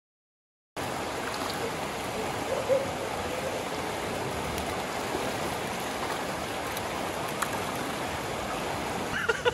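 Shallow rocky stream running over stones, a steady rush of water that starts suddenly after a moment of silence.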